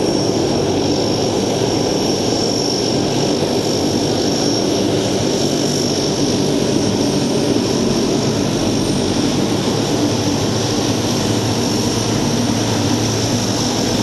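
Lockheed C-130 Hercules' four Allison T56 turboprop engines running as it taxis: a steady propeller drone with a high turbine whine over it.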